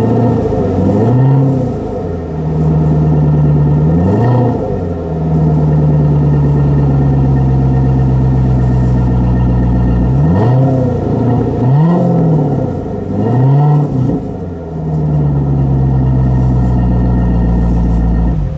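C7 Corvette Z51's 6.2-litre V8 running through a Flowmaster performance exhaust in touring mode, mostly at a steady idle and revved briefly about five times: once about a second in, once around four seconds, and three quick blips in a row a little past the middle.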